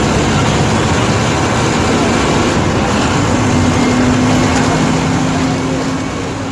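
Mercedes-Benz OF-1722M bus's diesel engine running steadily, its drone stepping up a little in pitch about three seconds in and then holding.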